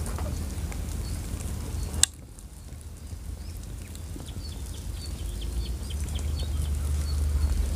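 Wind rumbling on the microphone, with faint short high bird chirps repeating and a single sharp click about two seconds in.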